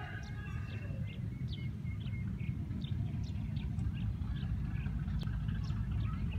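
Small birds chirping in short repeated calls, several a second, over a steady low rumble, with one sharp click about five seconds in.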